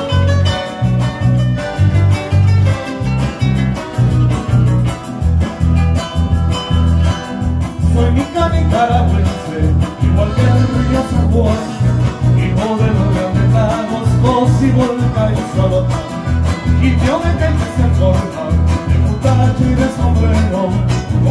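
Live band of electric bass, acoustic guitars and accordion playing a Latin American dance tune, with the bass plucking a steady bouncing rhythm under the melody.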